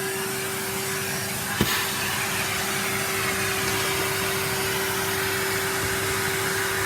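Vacuum cleaner running steadily, a constant rushing with a steady hum, as the floor is vacuumed. One sharp click about one and a half seconds in.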